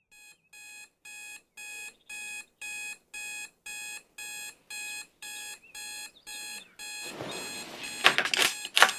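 An alarm beeping about twice a second, the beeps getting louder over the first couple of seconds. Near the end it gives way to rustling and two sharp knocks as a hand slaps at the bedside table to stop it.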